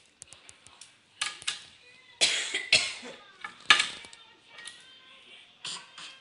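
A toddler's pretend coughing, about six short, breathy coughs. The loudest come in the middle.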